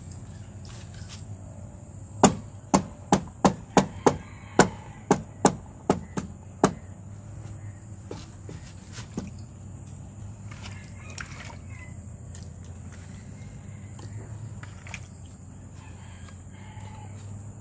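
Green bamboo tube packed with pork trotters being banged down on a wooden block to settle the filling: about a dozen sharp knocks, roughly two a second, lasting four to five seconds.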